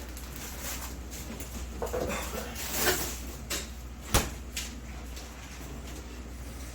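Quiet kitchen handling noises: a few soft knocks and rustles, with one sharp click about four seconds in, over a steady low hum.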